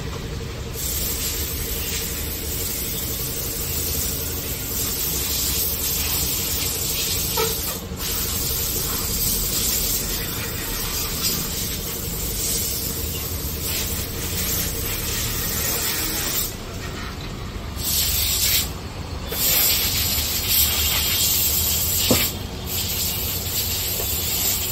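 Car-wash high-pressure spray gun hissing in long stretches, cutting off briefly several times near the end, over a steady low machine hum.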